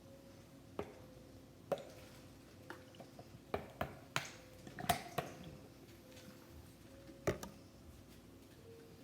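About a dozen scattered sharp clicks and taps of small containers and utensils being handled on a tabletop, bunched together near the middle, over a faint steady hum.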